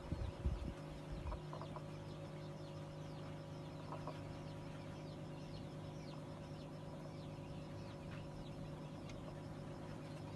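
Vorwerk chickens clucking softly now and then, with faint short high chirps over a steady hum. A few low bumps come in the first second or so.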